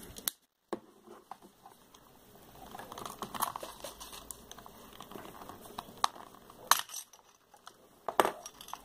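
Small screwdriver working on the plastic casing of a cheap hand-crank dynamo flashlight to open it: scattered light clicks and taps of plastic and metal, with two sharper clicks near the end.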